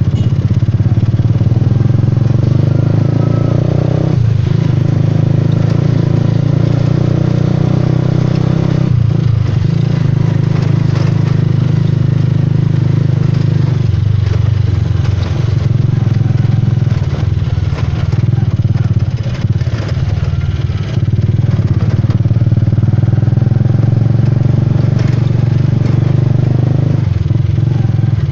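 Motorcycle engine running steadily under way, heard from on board. Its note dips and shifts a few times as the throttle changes.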